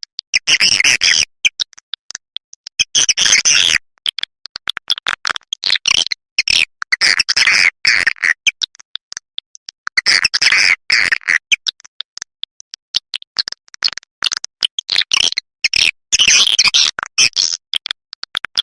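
Swiftlet call-sound recording, the lure audio played to draw edible-nest swiftlets: rapid high-pitched chirping twitters with clicks, coming in clusters every couple of seconds with short gaps between.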